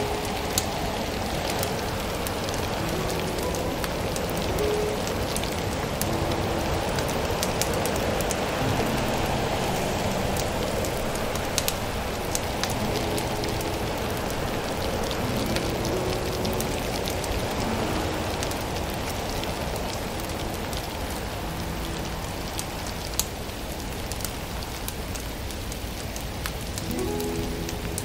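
Wood fire in a stove crackling, with scattered sharp pops over a steady rain-like hiss.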